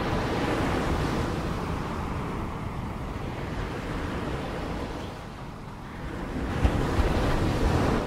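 Ocean waves washing onto a shore in a continuous rush of surf. It swells, eases off, then builds again with a new wave near the end.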